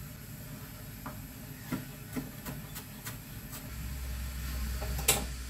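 Chef's knife chopping ginger on a wooden cutting board: a run of short, irregular chops, then a single louder knock near the end. A low hum comes in about halfway through.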